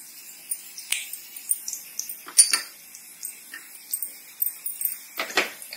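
Spices sizzling in a little hot refined oil in a steel kadhai on a low flame: a faint steady hiss with a few sharp clicks and crackles scattered through it.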